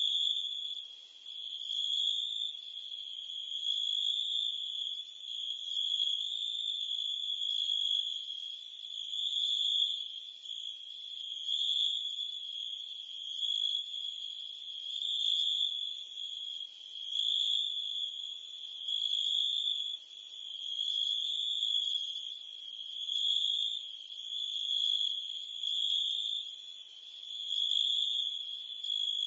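Crickets and cicadas chirping in a steady, high-pitched insect chorus that swells and fades every few seconds.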